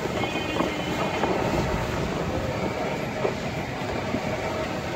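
Steady street din of engines and traffic, with a few short clicks and knocks.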